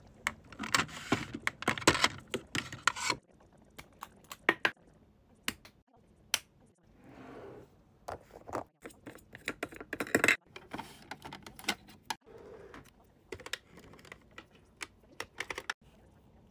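Irregular, quick clicks and taps, crowded together in the first few seconds and scattered after, with a short soft rustle about seven seconds in.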